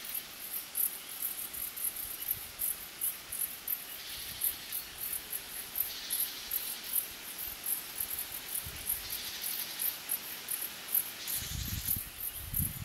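Insects chirping: a steady train of high, rapid pulses, about three a second, with a second, lower buzz that swells for about a second every two to three seconds. Some low rumbling near the end.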